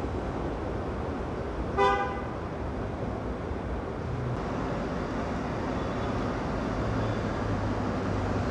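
NYC subway train horn giving one short toot about two seconds in, over a steady low rumble of train and station noise.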